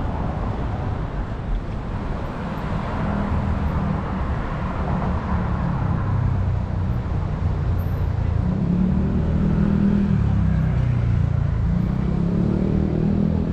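City street traffic: motor vehicles running and passing on the road alongside, with a low engine drone that grows louder in the second half.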